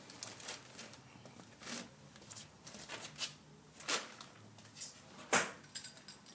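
Faint handling noises: scattered clicks and rustles, irregular, with a louder click a little after five seconds in.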